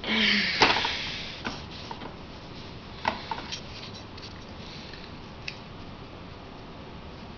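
Handling noise: a short rustling burst at the start, then scattered small clicks and knocks from a homemade coat-hanger hand drill being turned into a block of wood.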